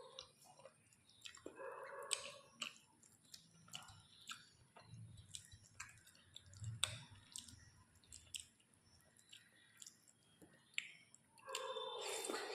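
Close-up eating sounds of rice and chicken curry being chewed: wet mouth clicks, smacks and soft chewing. A short sound with a clear pitch comes about two seconds in and again near the end.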